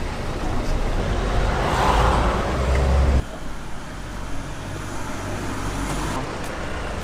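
Road traffic on a town street, with a motor vehicle passing that swells and fades around two seconds in. The sound cuts off abruptly about three seconds in to a quieter outdoor background.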